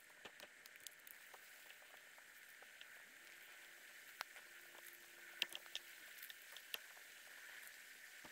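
Faint, scattered light clicks and crackles over a steady soft hiss, with a faint low hum in the middle.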